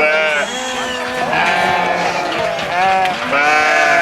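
A flock of sheep bleating, many overlapping calls with no break.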